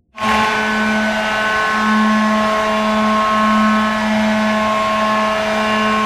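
Hockey arena goal horn sounding one long, steady, loud blast, starting a moment in. It is heard dry, without reverb.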